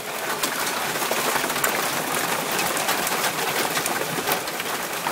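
Hail falling hard: a dense, steady clatter of countless small hailstone impacts.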